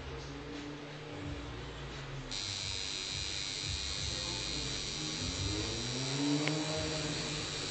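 Electric tattoo machine buzzing steadily, switching on about two seconds in.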